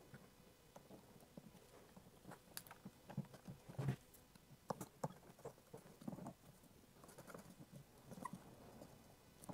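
Faint scattered clicks, taps and rustles of hands and pliers fitting a rubber fuel pipe and plastic parts inside an open inverter generator. The loudest tap comes a little under four seconds in.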